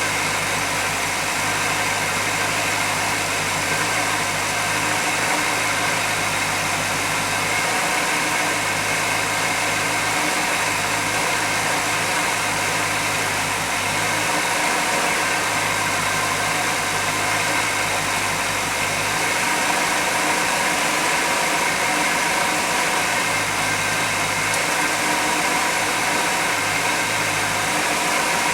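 1991 GMC Jimmy engine idling steadily, with an even hiss over it.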